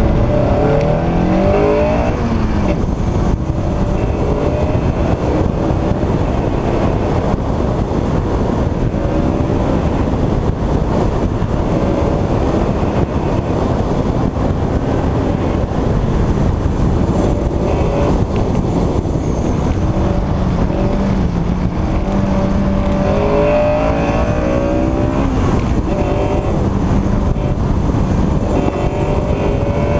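A car engine at full effort on an autocross course, its pitch rising as it revs and falling back again and again through acceleration, braking and gear changes, over a steady rushing noise.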